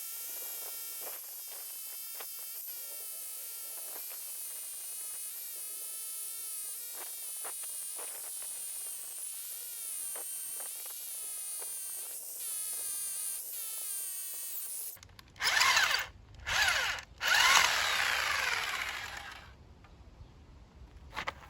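Harbor Freight electric jackhammer running: a steady motor whine, its pitch wavering slightly, for about fifteen seconds. Then the sound changes abruptly to three loud bursts of rough, harsher noise over a low rumble.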